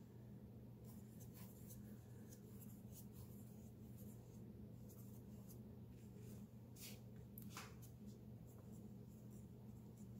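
Faint, irregular scratchy strokes of a paintbrush working acrylic paint over a textured canvas, over a steady low hum.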